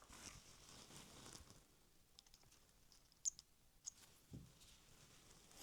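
Near silence with a few faint light clicks and one soft low thud, small parts of a model locomotive's wheelset being handled on the workbench.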